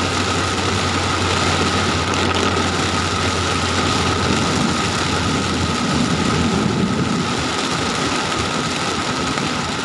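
Heavy rain on a moving car's roof and windscreen, heard from inside the cabin: a steady, dense hiss over the low hum of the engine and the tyres on the wet road.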